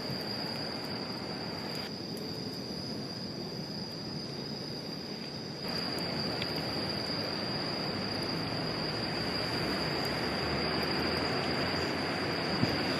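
Insects keep up a steady high-pitched drone over a steady rushing outdoor background. The background drops about two seconds in and comes back louder about six seconds in.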